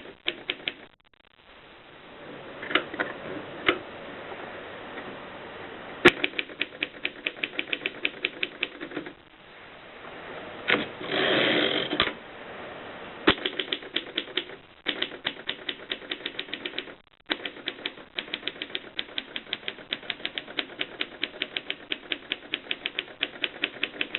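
Mercedes Superba typewriter being typed on: runs of rapid, evenly spaced keystrokes broken by short pauses and a few single heavier strikes, with a rasping noise lasting about a second near the middle.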